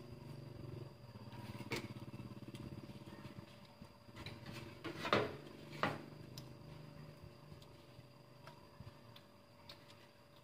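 A spoon and dishes clinking during a meal: a few sharp clicks, the loudest about five seconds in, over a low background hum that fades after about four seconds.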